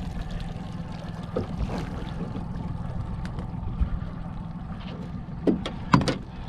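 Small boat's outboard motor running steadily at trolling speed, a low even hum. Two short sharp sounds near the end.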